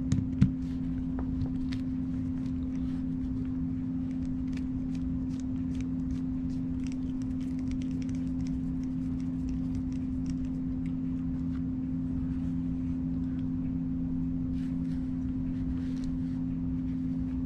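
Steady low hum, with faint small metal clicks and ticks over it as a screwdriver backs the latch screw out of a Springfield trapdoor rifle's breech block and the small parts are handled. A sharper click comes about half a second in.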